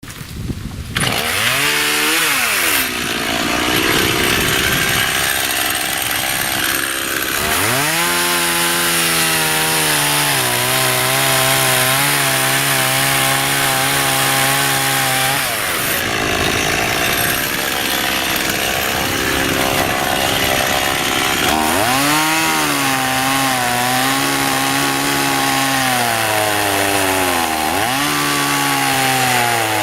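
Small Stihl 018 two-stroke chainsaw cutting into a large shea hardwood trunk with a short 12-inch bar. The engine revs up sharply several times, then its pitch sags and settles under load as the chain cuts.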